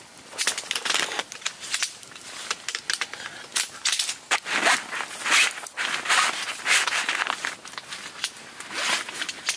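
Folding camp beds being put together: irregular clicks and scrapes of plastic legs pushed into the frames, mixed with rustling nylon fabric.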